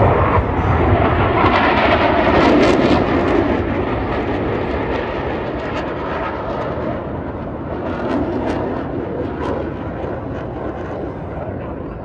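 Blue Angels F/A-18 Super Hornet jets passing overhead, a jet-engine roar that is loudest in the first few seconds and slowly fades as they fly away.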